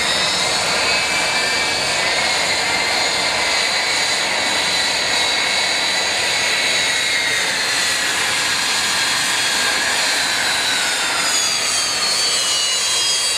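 Jet aircraft engines running with a steady, loud roar under a high whine whose tones drift slowly in pitch, sliding down near the end.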